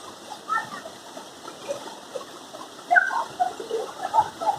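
Steady rush of water falling at a waterfall, with a few short pitched sounds over it about half a second in and from about three seconds on.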